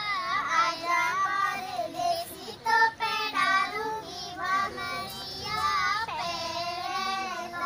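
A young girl singing a folk song solo in a high voice, in short phrases with wavering, drawn-out notes, the longest held near the end.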